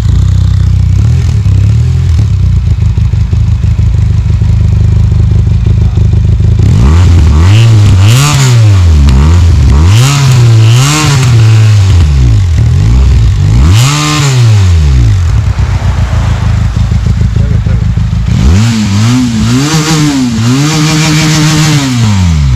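Benelli TRK 502X's parallel-twin engine idling steadily, then revved in a series of quick throttle blips from about seven seconds in, each rising and falling back to idle. It settles to idle again and is blipped a few more times near the end.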